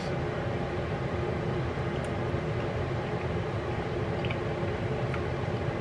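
Steady mechanical hum of a running household appliance or fan, with a faint whine in it, and a few faint clicks from someone chewing a mouthful of food.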